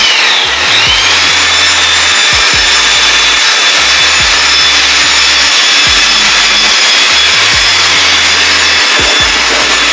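Small electric hoist (winch) motor running loud and steady, a harsh grinding drone with a high whine that wavers in pitch in the first second and then holds level.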